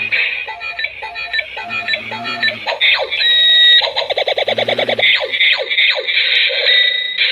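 Battery toy light-up sword playing its electronic sound effects through a small tinny speaker: a busy string of beeps, a fast pulsing buzz about four seconds in, and several quick falling laser-like zaps.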